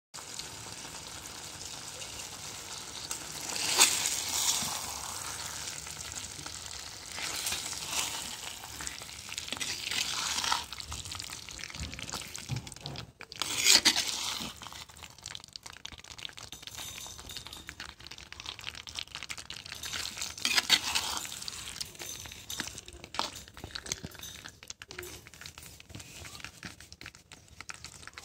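Chicken gravy sizzling in a clay pot as a steel spoon stirs it, with several louder swells of sizzling and scraping as the spoon turns the pieces.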